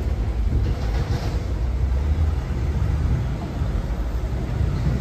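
Low, steady rumble of a thunderstorm.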